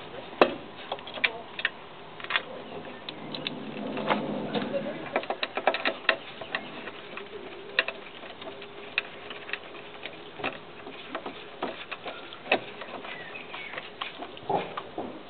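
Sharp, irregular clicks and small metallic knocks of a hand ratchet working the bolts of a 50cc scooter's CVT variator cover while it is fastened back on.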